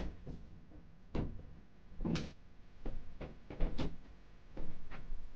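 Footsteps across a small room and a stiff paper mailer being handled: a string of separate soft thuds and rustles at irregular intervals, about one a second, growing busier near the end.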